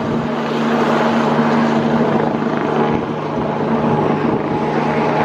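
Helicopter hovering just above the ground as it comes in to land, its turbine engine and rotor running steadily. A constant low hum sits over a loud, even rush.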